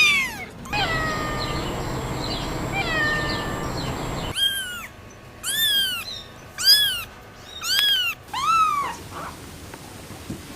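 Kittens mewing: short, high-pitched mews that rise and fall, repeated about once a second in the second half, after a few falling mews over a steady background hiss.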